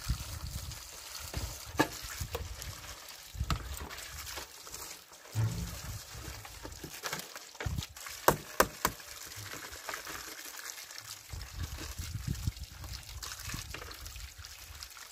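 Water running from an outdoor tap and splashing over tomatoes being washed by hand in a metal bowl, with a few sharp clicks and knocks as the bowl and a plastic basket are handled.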